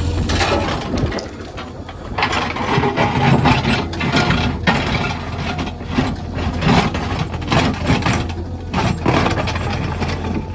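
JCB 3DX backhoe loader at work: its diesel engine runs steadily under irregular clanking and scraping.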